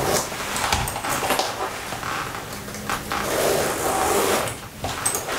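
Leather jacket and satin dress rubbing and rustling as they are handled, with a few short clicks.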